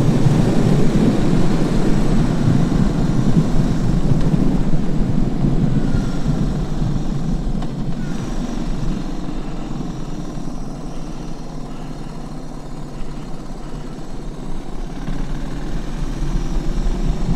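Suzuki DR 650 single-cylinder engine running while the motorcycle is ridden along the road, mixed with a steady rush of wind noise. The sound eases a little midway and picks up again near the end.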